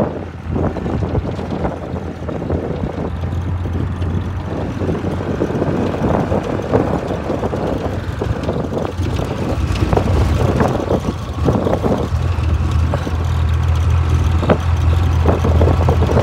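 Classic Land Rover driving over a rough, stony desert track, heard from the cab: a steady low engine drone with frequent knocks and rattles from the body, the drone growing louder near the end.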